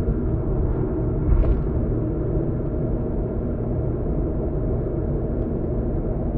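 Steady road and engine noise of a car driving at expressway speed, heard inside the cabin, with one brief louder thump about one and a half seconds in.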